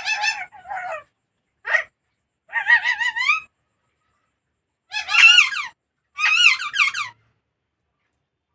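Pet parrot calling in about five short bursts of harsh, warbling squawks with a wavering pitch.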